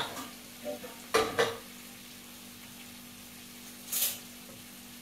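Chicken pieces with spices frying in a pan, sizzling faintly and steadily. Kitchenware clatters just after the start and again, louder, about a second in, and a short high hiss comes about four seconds in.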